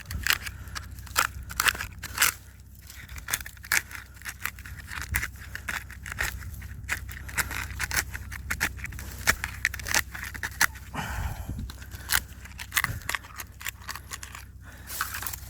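A wooden stick digging and scraping into soil and leaf litter, with many irregular sharp crackles and clicks.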